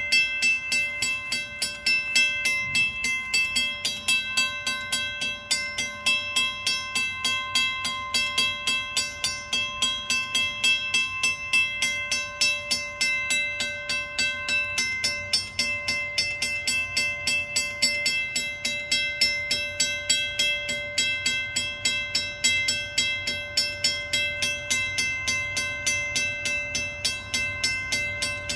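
Railway level-crossing signal bell ringing steadily, about three strokes a second, each stroke leaving a ringing tone: the crossing's warning that a train is approaching.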